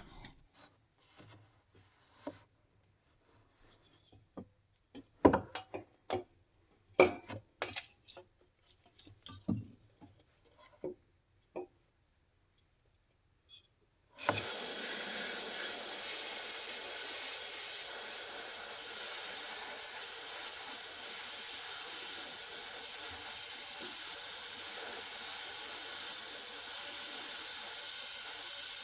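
Scattered clicks and knocks from handling parts, then about halfway through a steady hiss starts abruptly: an aerosol can of brake cleaner spraying continuously.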